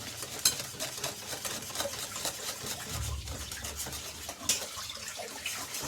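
A utensil stirring a runny semolina (basbousa) batter in a bowl, with soft scraping and many light clicks against the bowl, one of them sharper about two-thirds of the way through.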